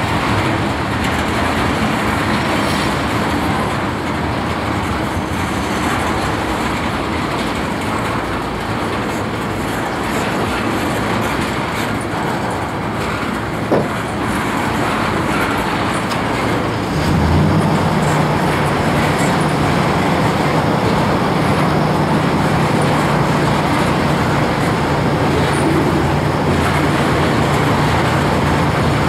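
Loaded railroad tank cars rolling past on a freight train: steady wheel-on-rail noise, with one sharp knock about halfway through. A steady low hum joins in about two-thirds of the way in.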